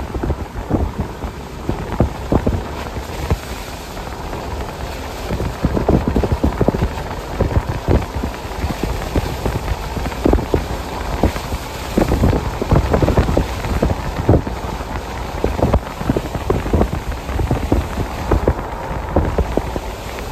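Freight train of tank cars rolling past close by: a steady low rumble from the wheels on the rails, broken by frequent irregular clanks and clicks.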